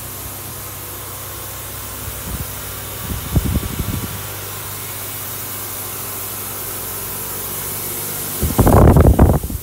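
Canning three-phase industrial polishing machine running at full speed: a steady motor hum with an airy hiss from the spinning polishing mops. Rumbling wind buffets the microphone briefly about three seconds in, and loudly for about a second near the end.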